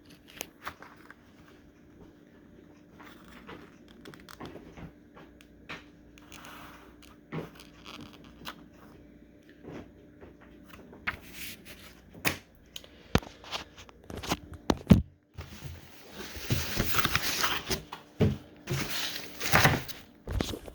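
Car stereo packaging being handled during unboxing: scattered light knocks and clicks of parts and cardboard being moved, then a few seconds of crinkling and rustling of packaging near the end.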